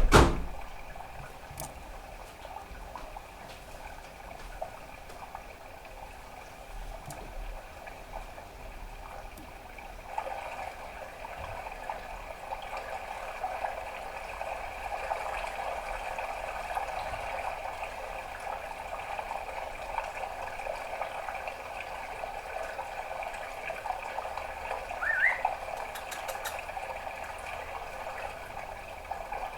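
Budgerigar chattering softly, a steady grainy warble that thickens about a third of the way in. There is a sharp click at the very start and one short rising chirp near the end.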